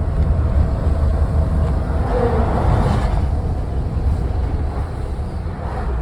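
Strong wind buffeting the microphone on the move: a heavy, unsteady low rumble with rushing noise over it, swelling louder about two to three seconds in.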